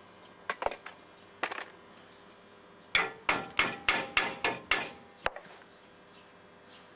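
Hammer striking metal with a short ringing clang on each blow: a few light taps in the first second and a half, then a quick run of about seven harder blows, roughly three a second, and one last blow just after.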